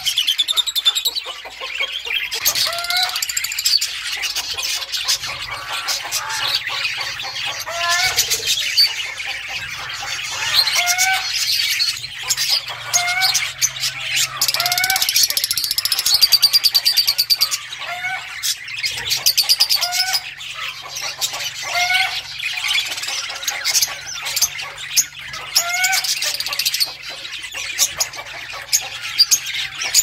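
A flock of caged lovebirds chattering: dense, rapid high chirps and squeaks, with a short rising call repeating every second or two.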